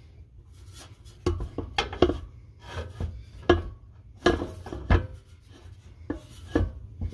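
A new JEGS driveshaft being turned and worked into place by hand, giving about ten irregular knocks and clunks of metal on metal as its yoke and U-joint bump against the mounting flange.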